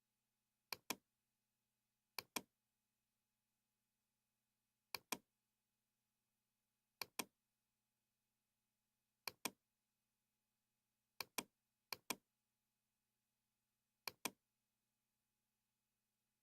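Computer mouse button clicks: eight short, sharp clicks at irregular intervals, each a quick pair of snaps, over a faint steady electrical hum.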